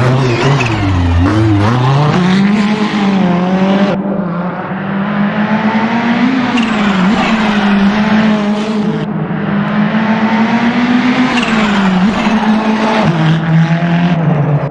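Ferrari 488 GT3's twin-turbo V8 at racing speed, its pitch dipping and climbing sharply in the first two seconds as it slows and picks up again, then holding high revs with small rises and falls.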